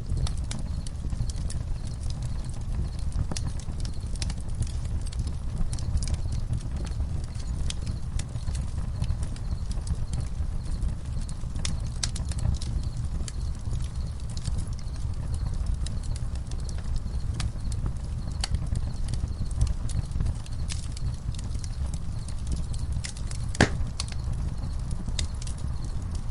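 Campfire crackling: irregular sharp pops and snaps over a steady low rumble, with one louder pop near the end. Crickets chirp faintly and steadily behind it.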